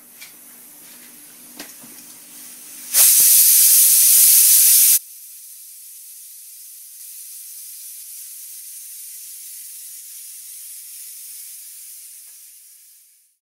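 A loud hissing burst about three seconds in, lasting about two seconds and cutting off sharply. A quieter, steady high hiss follows and fades out near the end. Before the burst there are a faint low hum and a couple of small clicks.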